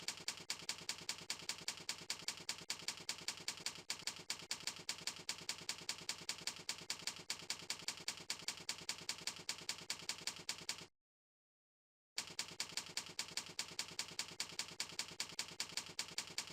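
Keyboard typing sound effect: an even run of sharp clicks, about five a second, that stops dead for about a second shortly after the middle, then resumes.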